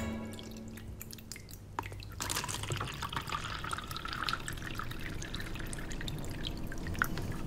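Liquid pouring and trickling into a paper cup, starting about two seconds in and running on steadily.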